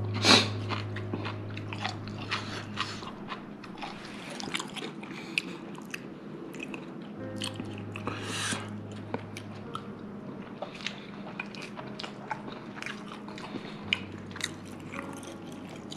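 A person chewing and crunching food close to the microphone, with many small crisp bites and clicks.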